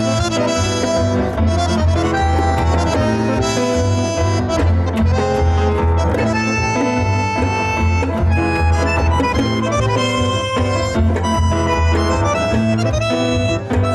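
Live tango music from a small ensemble: bandoneón carrying the melody over grand piano, double bass and violin, with a steady pulse in the bass.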